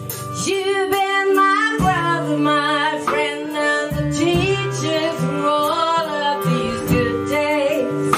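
A woman singing with vibrato over a band of guitar and bass. The voice and band come in about half a second in.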